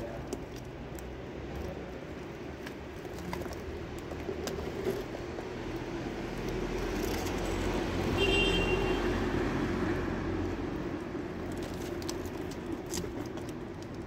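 A passing vehicle: a low rumble that swells to a peak about halfway through and then fades, with faint scattered clicks and one short high budgerigar chirp near the peak.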